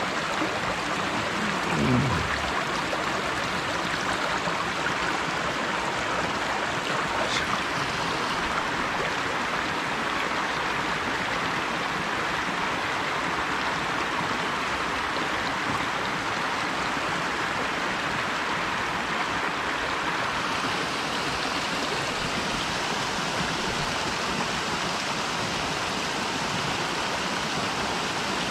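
Mountain stream rushing steadily, with water spilling over a small concrete weir into the pool below. A brief low sound about two seconds in; the rush turns a little brighter after about twenty seconds.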